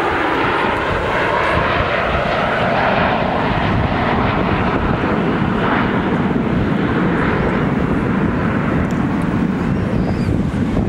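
Jet roar from the Blue Angels' F/A-18 Hornet formation passing during a display, a loud, steady rush. A whine in it falls in pitch over the first two seconds.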